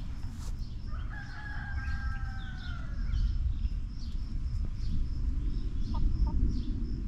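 A rooster crows once, a single drawn-out crow of about two seconds starting about a second in and dropping in pitch at its end. A couple of short clucks follow near the end, over a low rumble.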